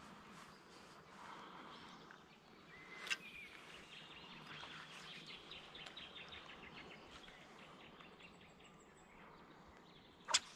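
Faint riverbank ambience: brief bird calls, a quick run of ticks in the middle, and two sharp clicks, the louder one near the end.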